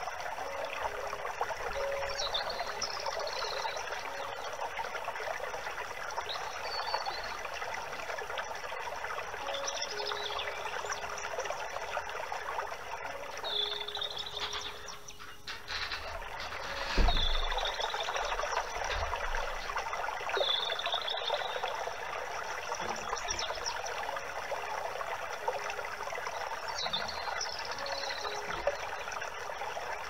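A small stream of running water trickling steadily, with a bird's short high chirps coming every few seconds. Near the middle the water briefly drops away, and soon after a single low thump sounds.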